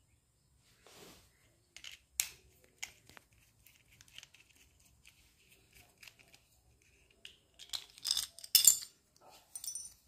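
Handling a plastic two-pin plug and a tester screwdriver while wiring the plug: scattered small clicks and scrapes, with a cluster of louder, sharper clicks about eight to nine seconds in.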